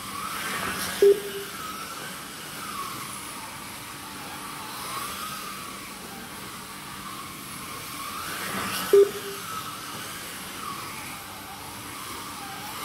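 Electric slot cars racing: their small motors whine, rising and falling in pitch again and again as the cars speed up and slow down around the track. Two short, loud beeps come about eight seconds apart.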